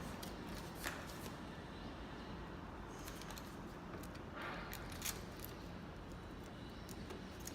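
Scattered light clicks and short scrapes of a door lock's metal parts being handled and fitted back in place, over steady low background noise.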